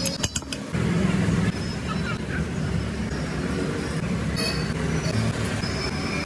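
Steady low rumble of street traffic with faint background voices. A few sharp clicks of a steel spoon against a steel mixing bowl come right at the start.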